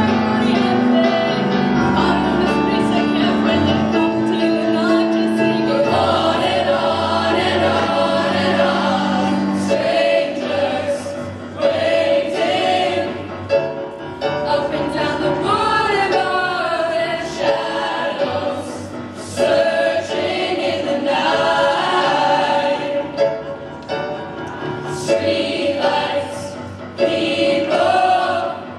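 A mixed group of teenage voices singing a pop-rock song together as a chorus, accompanied by live piano chords.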